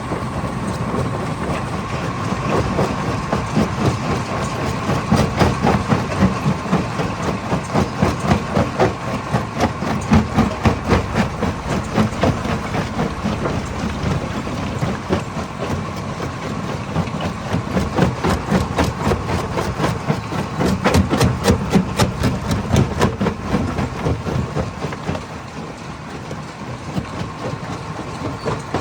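Hammer crusher running under load, stone knocking and clattering against the hammers in rapid, irregular impacts over a steady machine hum with a thin whine. The knocking grows denser for a few seconds at a time, twice.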